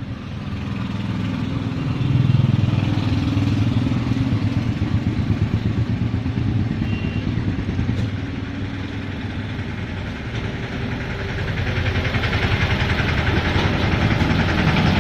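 A small engine running steadily with a fast, even beat, getting louder about two seconds in.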